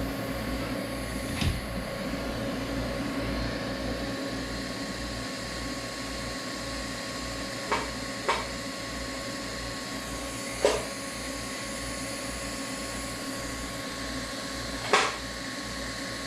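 Steady electrical hum of a running TIG welder, with a handful of short light taps spaced several seconds apart.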